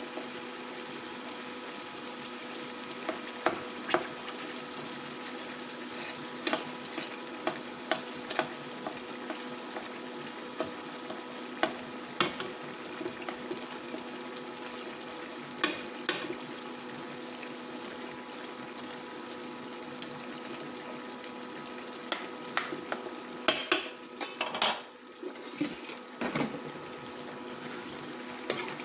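Chicken and tomatoes sizzling in oil in a metal pan, with scattered clicks and scrapes of a metal utensil against the pan as the tomatoes are mashed. A run of louder scraping comes near the end.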